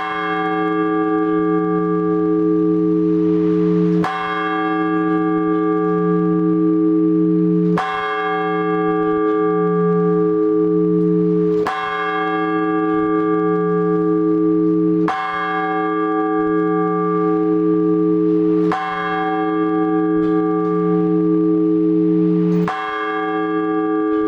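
One large Orthodox church bell struck in slow, measured strokes about every four seconds, seven in all, each stroke ringing on with a long wavering hum into the next: the blagovest, the single-bell ringing that calls the faithful to the liturgy.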